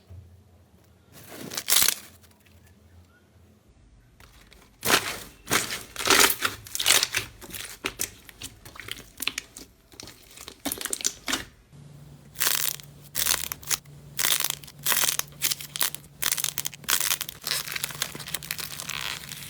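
Slime being squeezed and pressed by hand: quiet at first, then about four seconds in a quick, uneven run of short, sharp crackling sounds.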